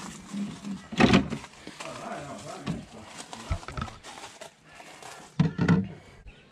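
Knocks and thumps of someone climbing a boat's stainless-steel boarding ladder into the fibreglass hull, with two heavier thumps, one about a second in and another near the end.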